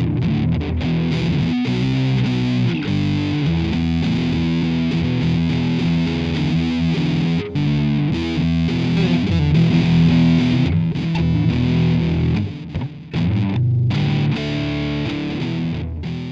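Background music led by distorted electric guitar, with a steady beat and held chords.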